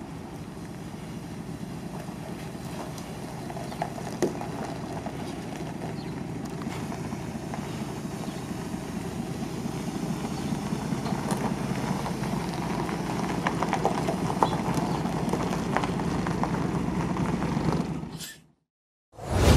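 Diesel engine of a 1985 MAN SL200 city bus running as the bus pulls slowly away across a gravel yard, growing louder as it comes nearer, with small crunches and clicks from the tyres on gravel. The sound cuts out briefly near the end.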